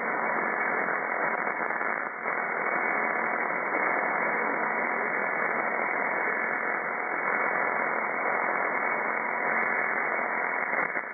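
Shortwave receiver hiss: steady band noise between transmissions on an HF amateur band, heard through a narrow voice filter that cuts everything above about 2.3 kHz, with a few faint steady whistles in it.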